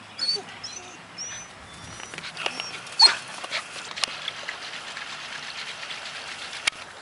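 Golden retriever puppies giving short, high yips and whimpers as they play, the loudest about three seconds in.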